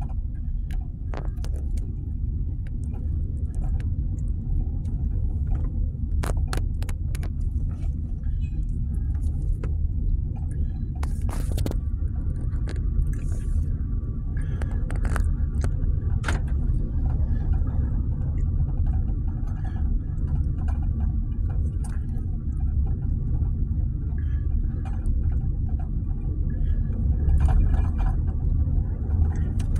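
A car's road and engine noise heard from inside the cabin while driving: a steady low rumble, with scattered light clicks and rattles.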